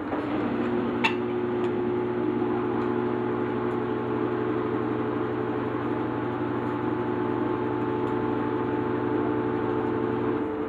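A steady machine hum made of several held tones, which starts just after the opening and cuts off shortly before the end, with one sharp click about a second in.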